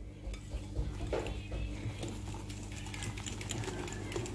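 Hand wire whisk beating chocolate cake batter in a glass bowl: rapid, irregular clicks and scrapes of the wires against the glass, over a low steady hum.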